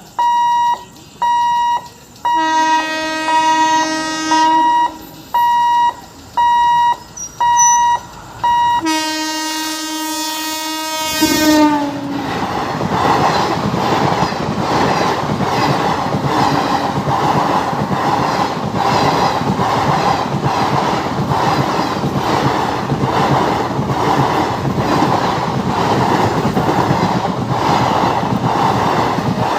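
A level-crossing warning buzzer beeps about once a second while a train horn sounds twice, the second blast dropping in pitch as the train arrives. Then the train runs through the crossing, its wheels clacking steadily over the rail joints.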